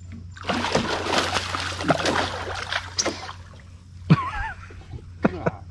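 Hooked tarpon thrashing and splashing at the surface beside a small boat for about three seconds, then a few separate knocks, over a steady low hum.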